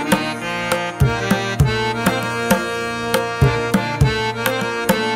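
Background music: a percussion beat of drum strikes under a sustained instrumental melody.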